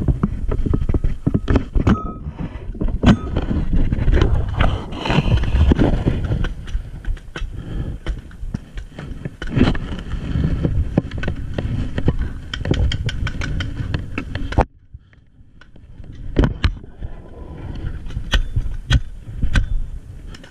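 Handling noise on a body-worn camera: clothing and paintball gear rubbing and knocking against it as the wearer crouches and moves, a dense run of scuffs and knocks over a low rumble. It drops away for about a second some two-thirds of the way in.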